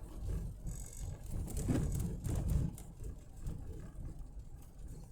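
Car cabin road noise: a steady low rumble of a car driving, with a louder stretch a little under two seconds in.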